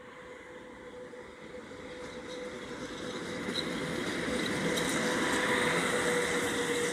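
PKP Cargo ET22 electric freight locomotive approaching and passing at speed with a long train of covered wagons: the rumble of wheels on rails with a steady hum grows louder and is loudest as the locomotive goes by near the end.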